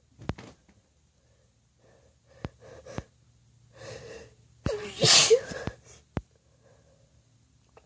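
A woman's breath catches in a few short gasps, then she lets out one loud wet sneeze about five seconds in.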